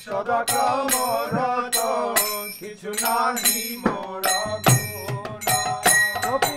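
Bengali devotional kirtan music between sung lines: a wavering melody over regular percussion strikes about twice a second.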